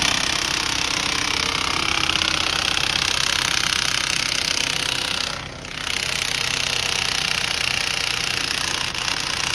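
A machine or power tool running loudly with a rapid rattle, dipping briefly about five and a half seconds in and then carrying on.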